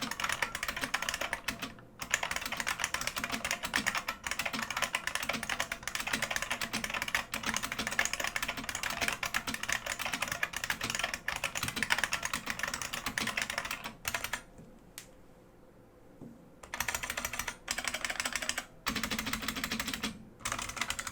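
IBM Model M Space Saving Keyboard with buckling-spring switches, bolt-modded, being typed on quickly: a dense run of loud key clicks with short breaks and a pause of about two seconds about two-thirds of the way through.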